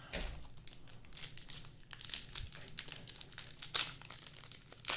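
Plastic wrapper of a trading card pack crinkling and tearing as it is opened by hand, with one sharp snap about three-quarters of the way through.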